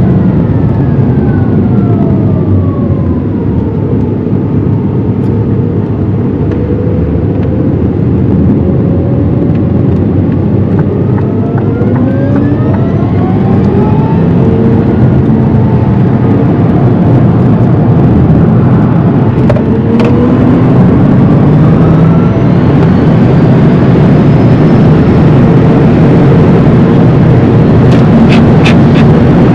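Rimac Nevera electric hypercar heard from inside the cabin: loud tyre, road and wind noise with the whine of its four electric motors. The whine falls in pitch over the first few seconds as the car slows, then rises steadily from about twelve seconds in as it speeds up again, and the noise grows louder toward the end, with a few sharp clicks near the end.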